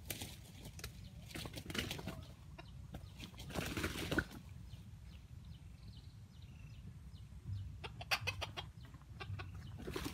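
Junglefowl clucking in short bursts of sharp calls, with a flutter of wings near the end.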